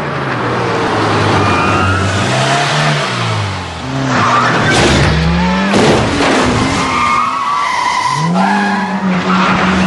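Citroën BX engine revving up and down while its tyres squeal, as the car spins in tight circles on tarmac.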